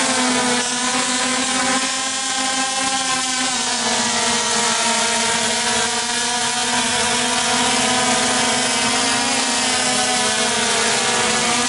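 DJI Phantom 3 Advanced quadcopter's motors and propellers buzzing close by while it is held overhead, a layered whine of several pitches that drift up and down as the motors change speed.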